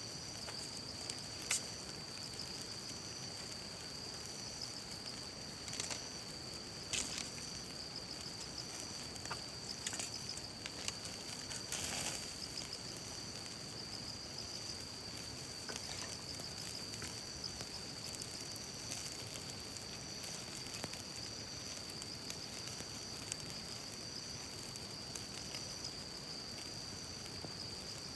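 Wood fire in a folding fire pit hissing steadily, with a handful of sharp crackling pops, over a constant high insect trill.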